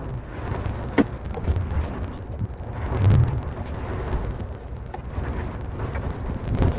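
Low, uneven rumble of wind on the microphone. A sharp click comes about a second in and a dull knock about three seconds in, as gloved hands work among parts in an engine bay.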